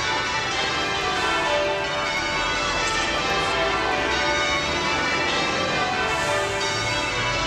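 Church bells pealing, many bells ringing continuously and overlapping at a steady level.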